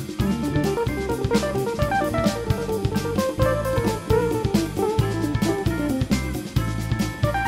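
Instrumental background music with drums and guitar, playing a steady beat.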